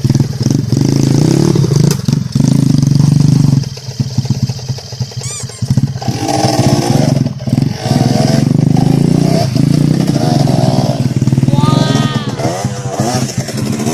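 Dirt bike engine revving hard under load. It eases off for a couple of seconds around four seconds in, then runs up again.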